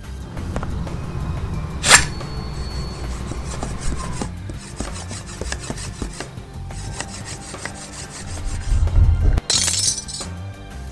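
Film soundtrack sound effects over a music score: a low rumble with rubbing and scraping, a sharp crack about two seconds in, and a heavy thump followed by a loud crash near the end.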